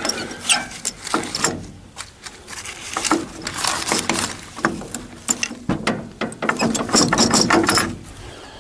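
Irregular run of sharp mechanical clicks and clacks in clusters, like metal parts being worked or ratcheted.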